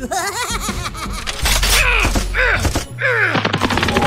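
Rapid burst of dubbed gunfire sound effects, a quick string of shots starting about three seconds in, over background music.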